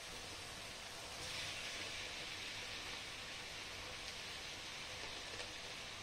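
Onion-tomato masala sizzling in an aluminium pan as raw chicken pieces are added; the sizzle grows louder about a second in and holds, with a few faint ticks.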